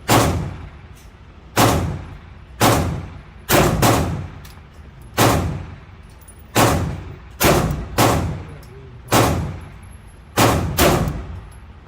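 Glock 19 9mm pistol fired repeatedly, about a dozen echoing shots at uneven intervals, roughly one a second.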